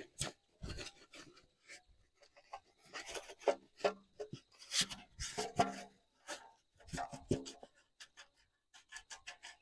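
Dry chicken manure being poured and scraped out of a metal basin onto loose soil: a string of short, irregular scrapes and rustles with now and then a knock of the basin.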